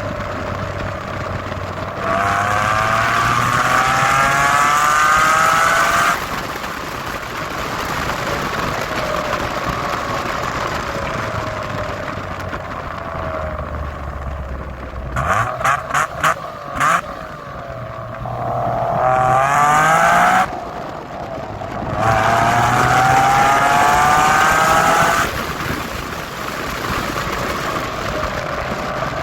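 Mitsubishi FTO GPvR's 2.0-litre 6A12 MIVEC V6 with a loud exhaust, accelerating hard in three pulls: the pitch climbs steadily each time, then drops back as the throttle is lifted. About halfway through come a handful of short, sharp blasts in quick succession.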